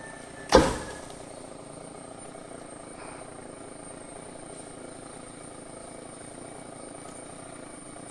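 Chainsaw idling steadily, with one loud thud about half a second in.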